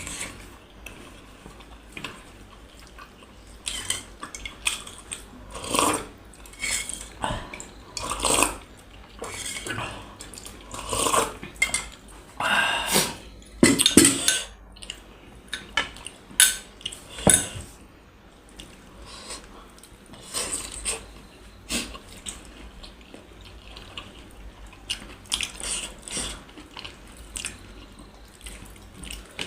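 Irregular clinks and taps of cutlery on dishes, with scattered sharp knocks that are busiest in the first half and thin out later.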